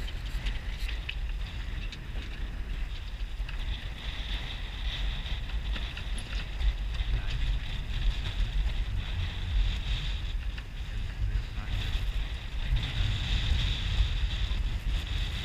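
Wind buffeting the microphone on a small sailboat, a gusty low rumble with a steady hiss of wind and water over it. The gusts grow stronger after about six seconds.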